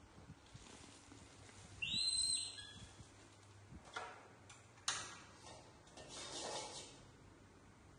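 A short, high-pitched squeaking call about two seconds in, from one of the baby macaques. Then sharp clicks around four and five seconds in as the portable gas stove's igniter is turned and the burner lights, followed by a faint hiss.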